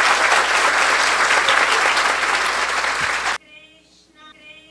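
Audience applause, a dense patter of many hands clapping that cuts off abruptly a little over three seconds in.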